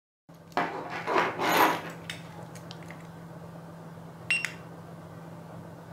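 Rustling and handling noise over a steady low hum, then, a little over four seconds in, a short, sharp double click: the phone's camera shutter sound, fired remotely by pressing the button on an iTag Bluetooth tracker fob.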